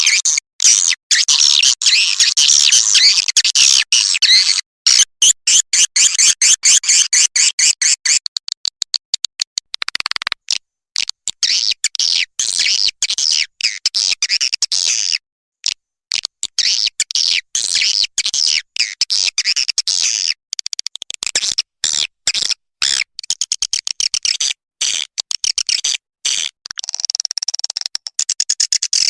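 Recorded twittering of white-nest swiftlets, a dense stream of high chirps played as a lure call for a swiftlet house. It is chopped by many abrupt silent gaps and thins out for a while in the middle.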